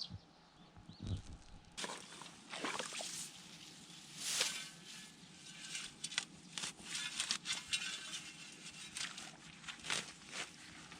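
Footsteps and rustling on waterlogged, muddy field ground: irregular steps and brushing sounds that start about two seconds in.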